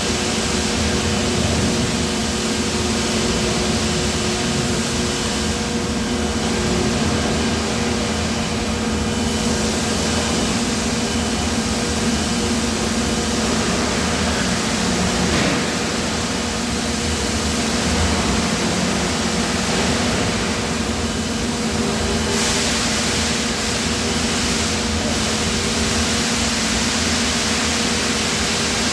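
Steady industrial machinery noise from a die-casting plant: a constant loud hiss with a steady low hum underneath, without letting up.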